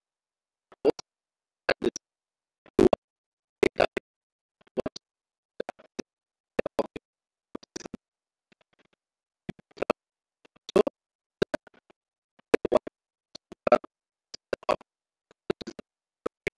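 Sharp clicks and taps at a computer, in small groups about once a second with silence between.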